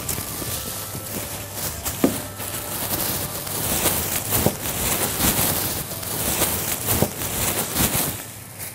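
Plastic bags rustling and crinkling as hands handle them, with a few sharp knocks.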